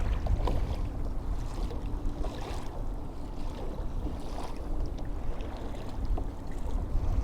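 Wind rumbling on the microphone over water sounds around a fishing kayak, with a few faint, scattered ticks.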